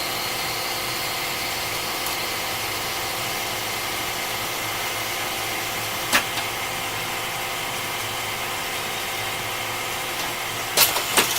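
Automatic turret lathe running steadily while turning down hex stock: a constant machine hum with several steady tones. A single sharp click comes about six seconds in, and a few more clicks come near the end.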